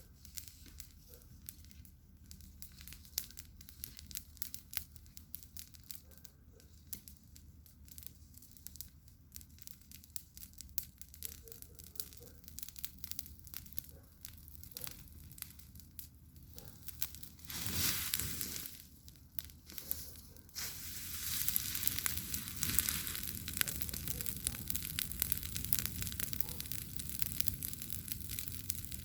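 Wood campfire crackling, with scattered sharp pops over a low hiss. A little past halfway there is a brief louder rush, and about two-thirds of the way in the fire turns louder, with a steady hiss and denser crackling.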